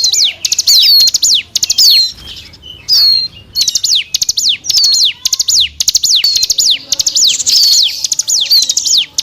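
Ciblek gunung (a prinia) song, as used for a bird-lure call: rapid runs of high, thin notes that each sweep downward, repeated in quick bursts with brief breaks between them.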